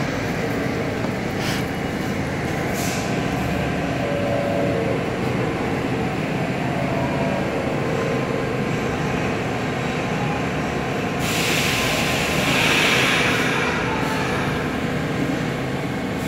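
New York City subway A train running along the far track of an underground station, a steady rumble of wheels and cars. About eleven seconds in, a brighter hiss joins it for a few seconds.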